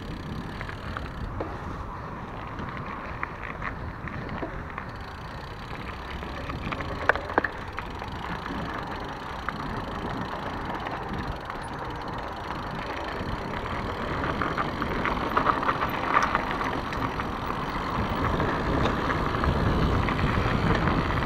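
Mountain bike rolling along a dirt singletrail: tyre noise and a steady rumble with scattered rattles and clicks from the bike, growing louder towards the end.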